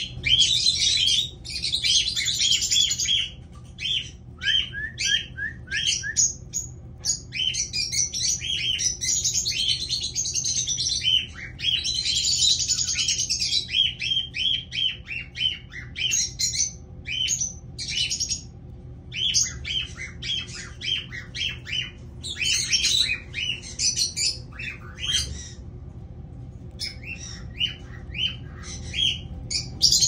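Rosy-faced lovebirds with their downy nestlings, giving rapid, dense squawking chirps in bursts, with a short pause near the end.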